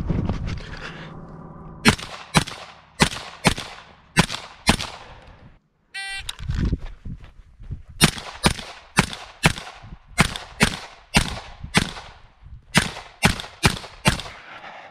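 Carbine firing rapid strings of shots, about two a second: six shots, then a short electronic beep, then about a dozen more shots with a brief pause partway through.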